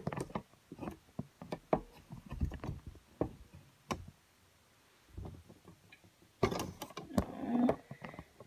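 Scattered clicks, knocks and rustles of a phone being handled and propped up for filming, with a busier stretch of knocking and rustling near the end.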